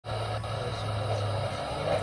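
Electric RC model crawler tractor's drive motor and gearing humming steadily, with a wavering mid-pitched whine over a low hum. There is a small click a little under half a second in.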